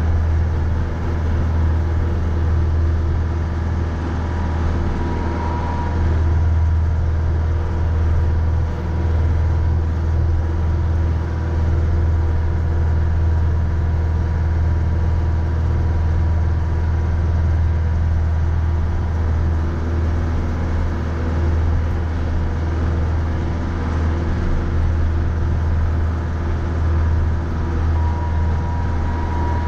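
Mahindra 3550 tractor's 50 hp diesel engine running steadily, a deep even drone.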